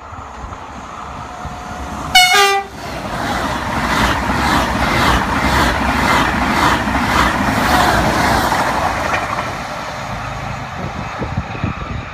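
Double-deck TGV high-speed train giving a short two-note horn blast as it approaches. It then rushes past at speed with a loud roar of air and wheels, carrying a regular beat of about two a second as the carriages go by. The roar eases off near the end.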